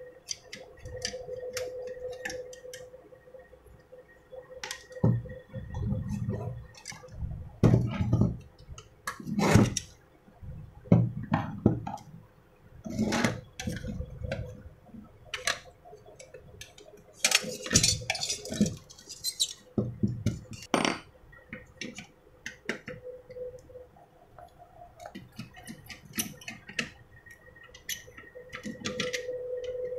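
An electric clothes iron being taken apart with a screwdriver on a wooden bench: irregular metallic clicks, clinks and knocks as screws are turned and the metal cover and parts are handled, with a longer scraping stretch a little past the middle.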